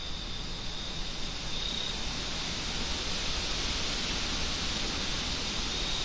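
Night wind blowing steadily in a soft rushing hiss, swelling into a stronger gust about halfway through. A thin, steady high trill runs under it.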